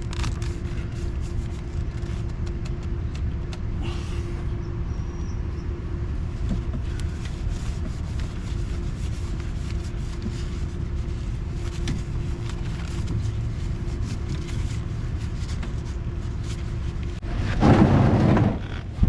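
Steady low rumble with a constant hum and faint scattered clicks; a louder rushing noise swells for about a second near the end.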